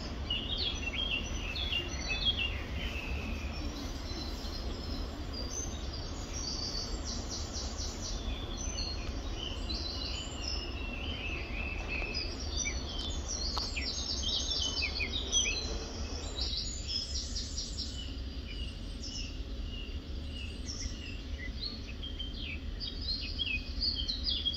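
Small birds chirping and singing, many short high calls and trills one after another, over a steady low background rumble.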